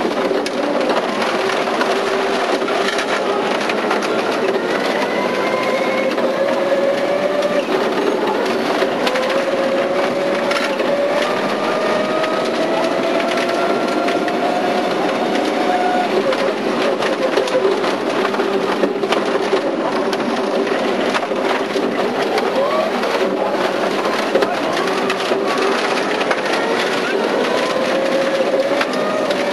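Rally car on a gravel stage, heard from inside the cabin: the engine's note climbs slowly and then drops several times as it runs up through the gears, over a constant rush of tyre and road noise with stones clattering against the underbody.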